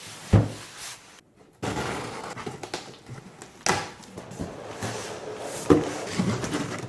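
A cardboard box of cookware being opened and its packaging handled: continuous rustling and scraping, with three sharp thumps just after the start, about midway and near the end.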